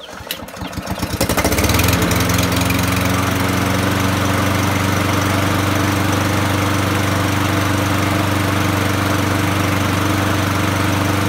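Husqvarna push mower's 149cc Kohler engine pull-started, catching within about a second and then running steadily, with its carburetor freshly cleaned and its recoil starter repaired.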